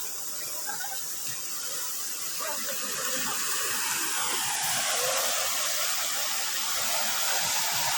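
Steady rushing noise of floodwater, growing a little louder about three seconds in.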